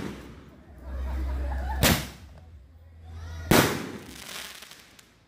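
Eight-shot firework tube firing two loud shots about a second and a half apart. The second shot is followed by a brief crackle as it bursts.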